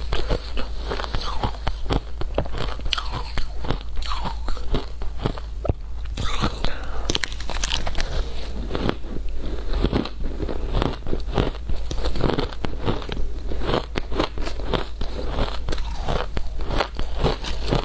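Shaved ice being bitten, crunched and chewed in quick succession, with a spoon scooping through the icy mound between mouthfuls.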